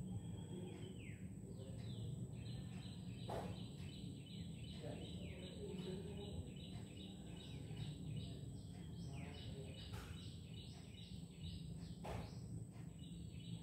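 A bird chirping in quick runs of short, high repeated notes with some falling sweeps, pausing briefly near the end before starting again. Under it runs a steady low hum, with a few sharp clicks.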